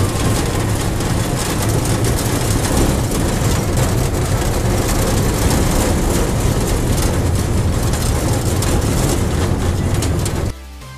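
Park toy train running along its track, heard from its open carriage: a loud, steady engine drone with noise over it. It cuts off about ten and a half seconds in, giving way to background music.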